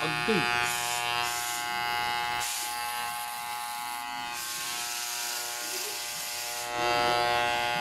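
Corded electric hair clippers buzzing steadily as they are pushed through long hair, with stretches of rasping hiss whenever the blades bite. The hair is oily and keeps clogging the blades, so they cut poorly.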